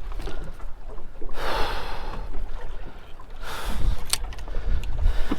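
Wind rumbling on the microphone and water sloshing around a drifting small boat whose outboard is not running, with a broad rush of noise about a second in and a few sharp clicks later on.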